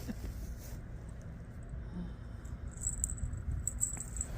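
Small bell on a cat's harness jingling lightly in short shakes, starting about three seconds in, over a low steady rumble.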